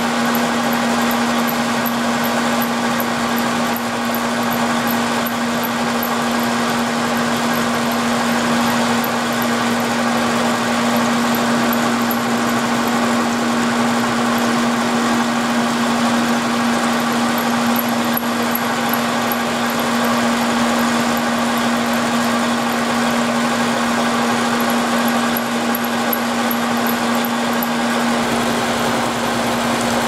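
Vertical milling machine running with a steady hum while an end mill cuts a 5/8-inch keyway full depth (5/16 inch) in one pass. The shaft is on a slow power feed of half an inch per minute under flood coolant.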